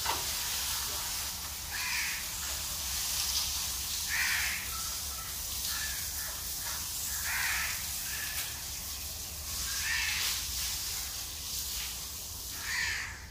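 A crow cawing repeatedly, a short call every two to three seconds, over a steady high hiss of food sizzling on the stove.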